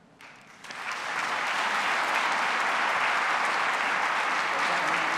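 Audience applauding. The clapping starts about half a second in, swells over the next second and then holds steady.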